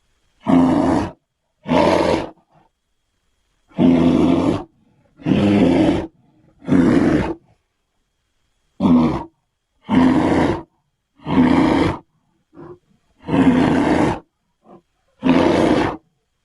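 Bear-roar creature sound effects, taken from the Griztar the Mighty Cave Bear sounds: a string of about ten loud, short roars, each under a second long, separated by silent gaps. Two very brief snippets fall between the later roars.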